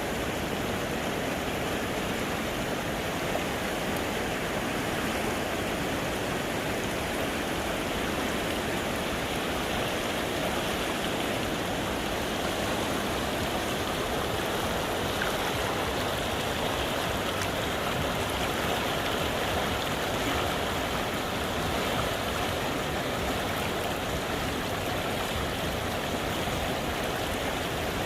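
Flowing water rushing steadily, an even unbroken rush with no change.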